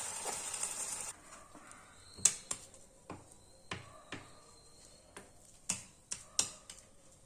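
A steady sizzling hiss from the hot pan stops abruptly about a second in. Then come scattered sharp clicks and knocks, about nine, of a spoon against metal as the thick halwa is scraped from the kadhai and spread into a greased plate.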